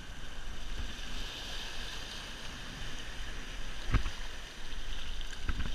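Surf washing over and around the rocks, a steady rushing hiss, with one sharp knock about four seconds in.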